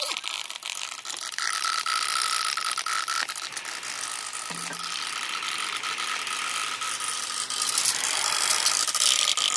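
Marbles and billiard balls rolling fast along a bamboo marble run: a dense, rapid clatter of clicks over a steady rolling tone, louder near the end.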